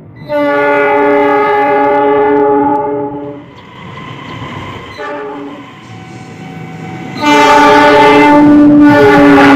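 Multi-tone air horn sounding a locomotive-style horn in long chords: a blast of about three seconds, a fainter stretch of horn around five to six seconds in, then a louder blast starting about seven seconds in.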